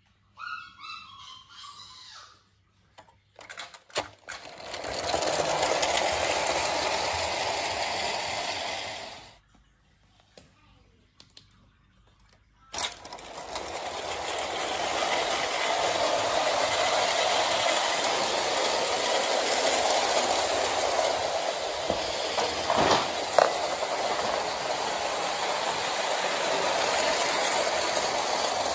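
Bassett-Lowke 'Duke of York' O-gauge clockwork locomotive and its tinplate coaches running on Hornby tinplate track, with a steady mechanical running noise from the spring motor and wheels. Near the start there are a few clicks and about five seconds of running that fades away. After a pause, a sharp click about 13 seconds in, then the train runs steadily on.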